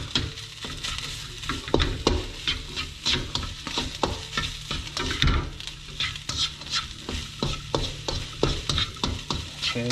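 Slotted spatula scraping and turning rice and egg in a nonstick frying pan, breaking up the rice, with the food sizzling in oil. The scraping strokes come irregularly, a few each second, over a steady low hum.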